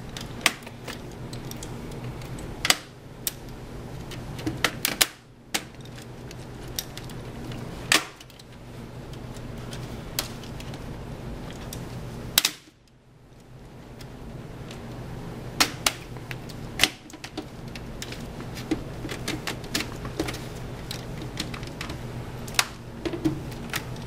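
Plastic snap clips of a Samsung NP305V laptop's top case clicking and popping loose as the case is pried apart with a flat screwdriver: irregular sharp clicks, a few louder snaps among them, over a steady low hum.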